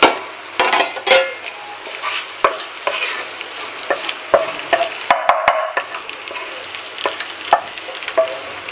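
Wooden spatula scraping and knocking scrambled eggs out of a hot non-stick frying pan onto a steel plate, with a light sizzle from the freshly cooked eggs. Many short knocks and scrapes, and a few brief ringing clinks in the second half.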